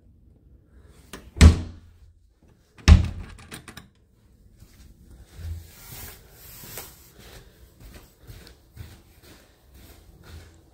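Two loud door thumps about a second and a half apart, like a door being shut, followed by fainter knocks and rustles.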